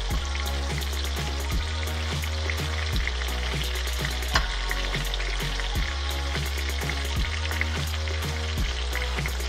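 Whole black sea bass frying in hot oil in a pan: a steady sizzle, with one sharp tap about four seconds in.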